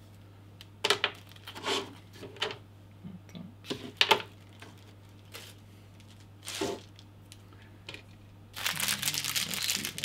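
Plastic packaging bags being handled while unpacking: a few separate sharp rustles and clicks, then continuous crinkling of a small clear plastic bag starting about eight and a half seconds in. A faint steady low hum lies underneath.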